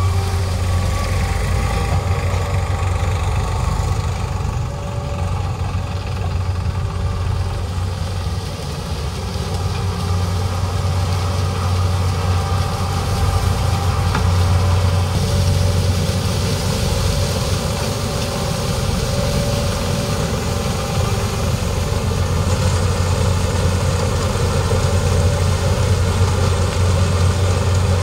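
Diesel engines of a Case sugarcane harvester and a New Holland 3630 tractor running together at a steady pitch, a continuous low hum throughout.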